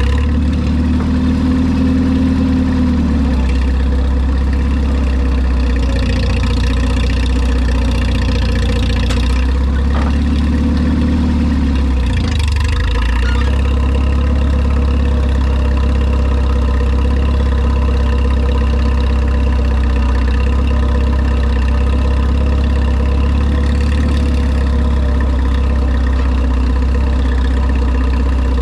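Tractor engine running steadily at idle, with a higher hum coming in briefly twice.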